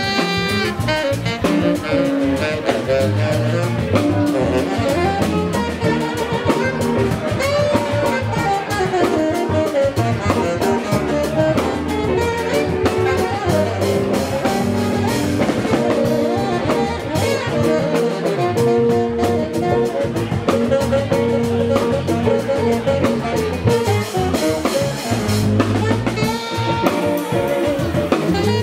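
Live improvised funk jam: a tenor saxophone plays a melody line over a drum kit and electric guitar.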